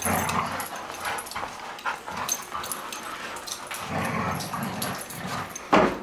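Three dogs play-growling and vocalizing as they scuffle in a tug-of-war over a toy, with a sharp thump near the end.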